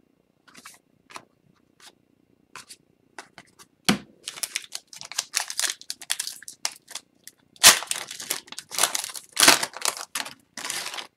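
An Upper Deck hockey card pack's foil wrapper being torn open and crinkled by hand. It starts with a few light clicks and rustles, then about four seconds in turns into steady crackling with two louder tears near the end.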